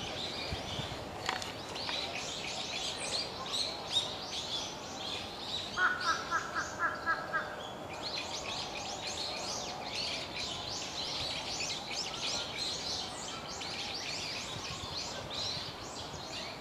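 Many wild birds chirping and calling at once in a dense, fast chatter of high notes. About six seconds in, a lower call repeats rapidly, about five notes a second, for under two seconds.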